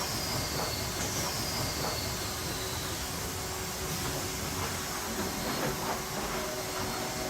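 Steady clattering run of sawmill machinery: conveyors and the automatic lumber stacker at work. A faint high whine falls over the first three seconds, over a steady hum.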